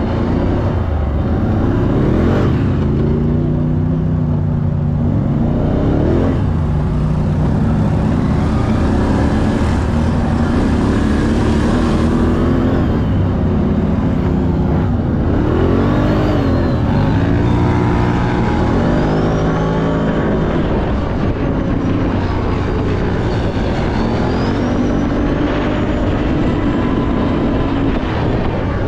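2024 Renegade's engine running while driving, its pitch rising and falling again and again as it revs up and eases off.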